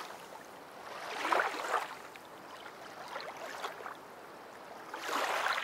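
Whooshing sound effect from an animated end card: soft swells of rushing noise like wind or surf. One fades at the start, another rises and falls about a second and a half in, and a third comes near the end, over a low steady hiss.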